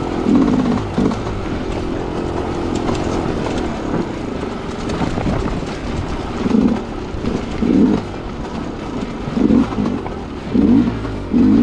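Sherco enduro dirt bike engine pulling at low speed up a rocky singletrack climb, revved in several short, uneven throttle bursts as the rider works for momentum.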